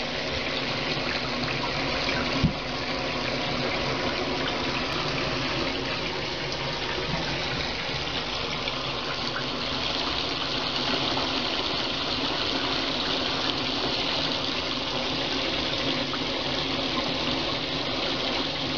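Shower water running steadily into a bathtub and splattering on the tub floor, with one short knock about two and a half seconds in.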